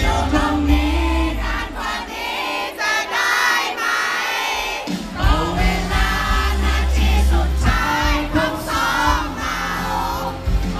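A man singing a pop ballad live into a handheld microphone over an amplified backing track. The bass of the backing drops out about two seconds in and comes back in about halfway through.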